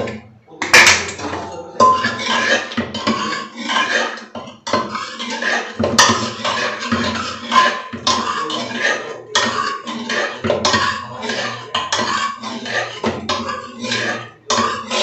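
Steel kitchen utensils and dishes clattering and clinking on a counter, with short metallic rings.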